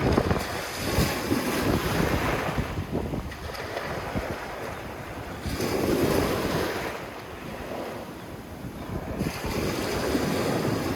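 Sea waves washing onto a sandy beach, swelling and easing every few seconds, with wind noise on the microphone.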